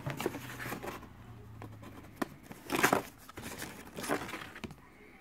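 Cardboard and paper rustling and scraping as items are handled and pulled out of a cardboard shipping box, in a few short bursts, the loudest about three seconds in.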